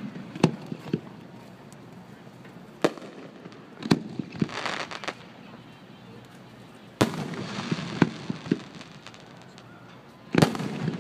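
Aerial firework shells bursting overhead in a fireworks display: a series of sharp bangs one to three seconds apart, several followed closely by smaller pops.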